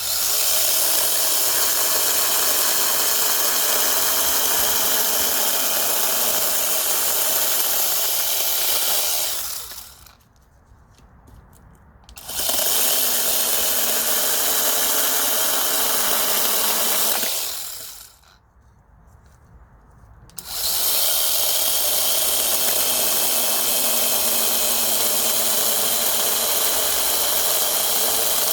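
Brushless battery-powered mini chainsaw running in three long bursts, each with a steady whine. The motor winds down to quiet twice for a couple of seconds between runs.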